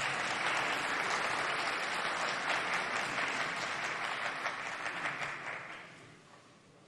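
Applause from members of parliament in the assembly chamber, many hands clapping together, dying away about six seconds in.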